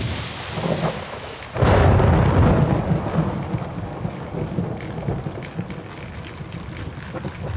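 Thunderstorm sound effect: rain with a sudden loud thunderclap about one and a half seconds in, followed by a long low rumble.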